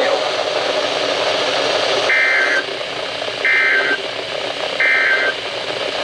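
Three short two-tone data bursts of an Emergency Alert System end-of-message (SAME EOM) code, starting about two seconds in and a bit over a second apart, signalling the end of the flash flood warning. They come from a NOAA Weather Radio broadcast over a steady hiss of reception static.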